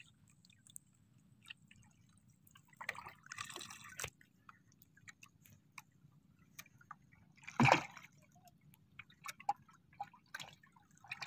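Faint seawater dripping and lapping at a small boat's hull, with scattered small clicks and one louder thump about two-thirds of the way through.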